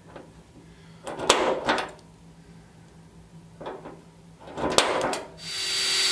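A few sharp clicks of a center punch dimpling hole marks in a car's sheet-metal deck lid. Near the end a cordless drill starts up and runs with a steady whine as it begins a pilot hole.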